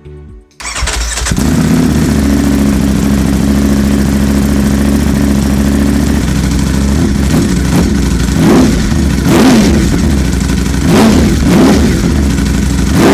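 Ducati V4 SP's 1100cc Desmosedici Stradale V4 engine starting up and settling into a steady idle. From about two-thirds of the way through come several short throttle blips, each revving up and falling back.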